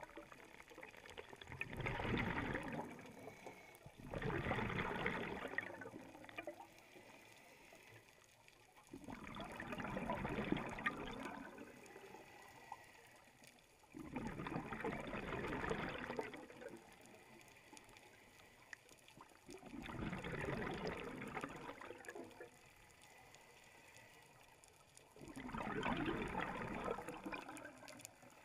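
Scuba diver's breathing through a regulator, heard underwater: six bursts of exhaled bubbles, each about two seconds long, about one every five seconds, with quieter stretches between breaths.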